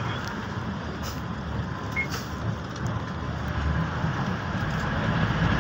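Bus engine and road noise heard from inside the cabin: a steady low rumble that grows louder near the end, with a brief high beep about two seconds in.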